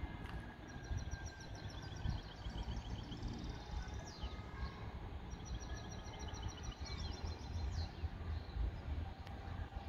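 A songbird sings two phrases of rapid, evenly repeated high notes, each ending in a quick downward sweep, over a low, uneven background rumble.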